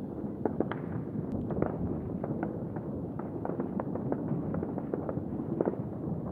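Distant fireworks and firecrackers going off all over a town: an unbroken scatter of irregular bangs and cracks, several a second, over a steady low rumble.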